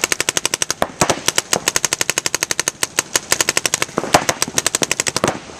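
Paintball markers firing in long rapid strings of sharp pops, about ten or more shots a second, with brief breaks and a few louder single shots among them.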